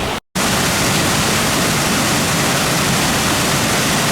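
Waterfall rushing: a steady, loud, even hiss of falling water, cut off by a brief moment of dead silence a quarter of a second in before it resumes unchanged.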